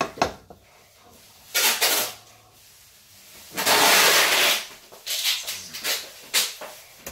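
Kitchen handling noises while food is served onto a plate: scattered clicks and knocks of dishes and utensils, with a loud rustling hiss lasting about a second near the middle.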